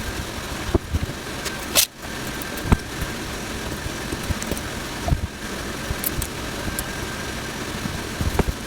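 Rebuilt Chinese tattoo machine running with a steady mechanical buzz, broken by scattered sharp clicks and a brief drop about two seconds in.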